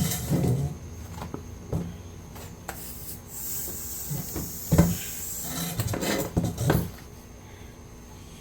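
A series of knocks and clunks from hand tools and other hard objects being handled and set down, the loudest about five seconds in.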